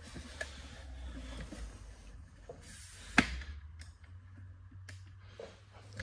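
Handling noise from a camera tripod being moved and adjusted: a low rumble with scattered light clicks and a single sharp click about three seconds in.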